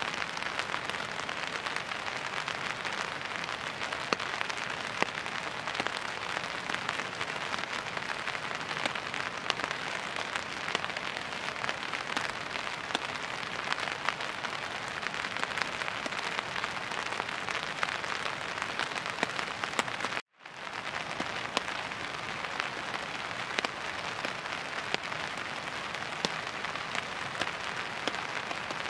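Steady water noise with a dense patter of fine drops. It cuts out for a moment about twenty seconds in.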